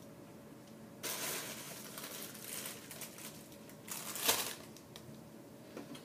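Bottles and plastic bags being pulled out of the cabinet under a kitchen sink: rustling and handling noises, loudest a little over four seconds in.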